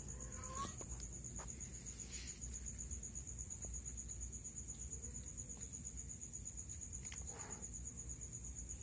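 Crickets trilling steadily in a fast, even pulse through the whole stretch. A cat gives a short mew about half a second in.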